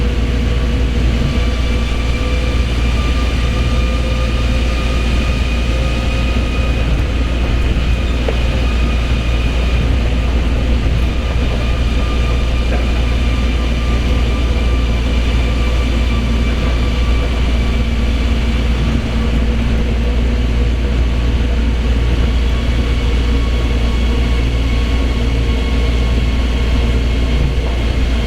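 Osaka Monorail train running between stations, heard from inside the car: a steady low rumble of its rubber tyres on the concrete guide beam, with a faint motor whine holding a few steady pitches that drift slightly up and down.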